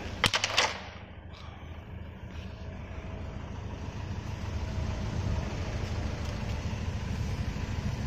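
A few sharp crinkles and clicks of a plastic sheet being handled near the start, then a steady low rumble that grows slightly louder toward the end.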